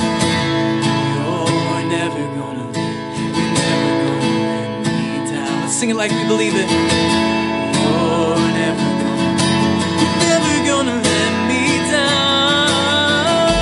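Worship song music, led by a strummed acoustic guitar with other instruments, with no sung words.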